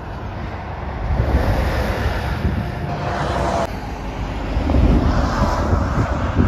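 Wind buffeting the phone's microphone in uneven gusts over the low rumble of lorries on the highway.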